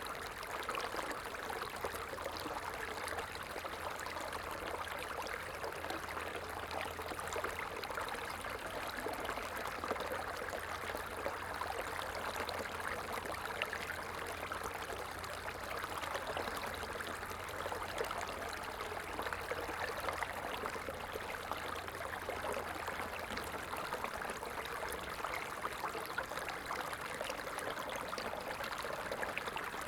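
Running water flowing and trickling steadily, with a fine splashing crackle.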